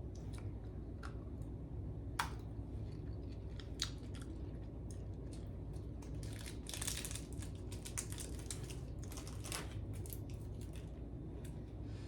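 Someone chewing and crunching hard candy close to the microphone, with scattered mouth clicks and a brief crinkling rustle about seven seconds in.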